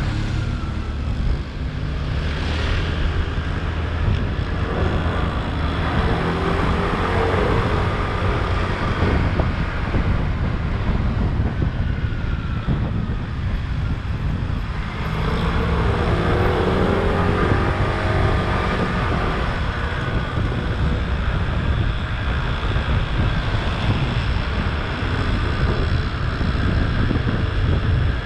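Scooter engine running under way with road and wind noise, heard from the rider's seat; the engine note swells and falls twice.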